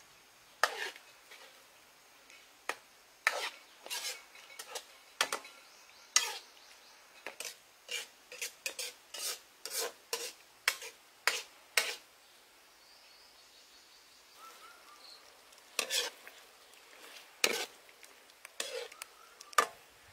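A metal ladle stirring and scraping in a wok of octopus in sauce: a run of irregular clinks and scrapes, which pauses for a few seconds about two-thirds of the way through and then starts again.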